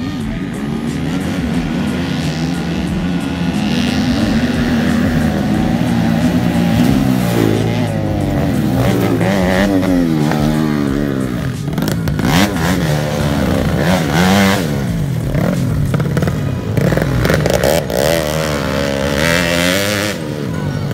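Dirt bike engine revving up and dropping back again and again as the rider opens and closes the throttle, pitch rising and falling throughout.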